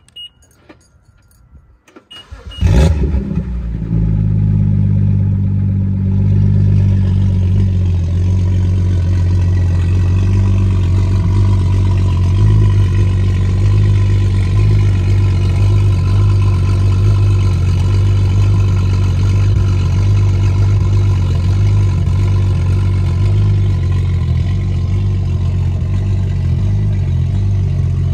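BMW 535i's N55 turbocharged inline-six cold-started with its electric exhaust cutouts open, breathing through a high-flow catted downpipe. After a few faint clicks, the starter cranks and the engine catches about two and a half seconds in, then settles into a steady cold idle.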